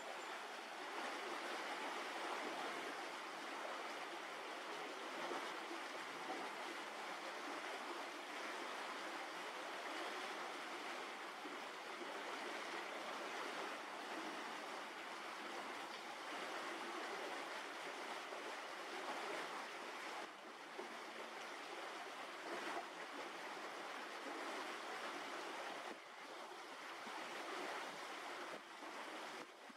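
Steady rushing noise, even and without distinct events, of the kind made by wind or running water.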